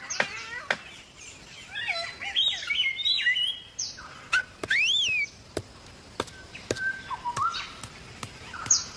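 Palm cockatoo calling: a string of varied whistled notes that glide up and down, with several sharp clicks in between.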